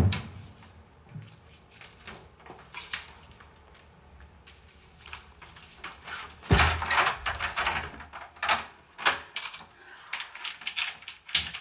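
A door being worked: a run of scattered knocks and clicks, with a heavy bang about six and a half seconds in and a quicker clatter near the end.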